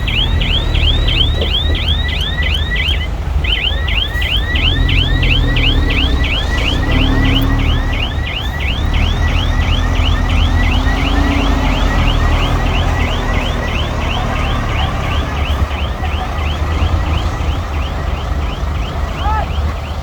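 A heavy machine's warbling reversing alarm, about four falling chirps a second, over the low rumble of diesel engines running. The alarm breaks off briefly near the start and fades out near the end.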